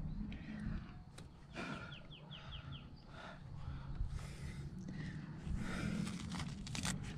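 A rock climber breathing hard with sharp, noisy exhales every second or two as he works a hand jam up a crack, over a low rumble. About two seconds in comes a quick run of five short, high, falling chirps.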